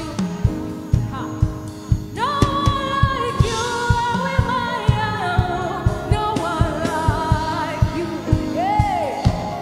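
Gospel worship song: a voice singing drawn-out melodic lines over music with a steady beat.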